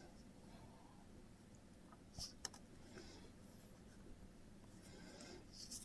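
Near silence with faint scratching of drawing strokes: a short stroke or two about two seconds in and a longer run of strokes near the end.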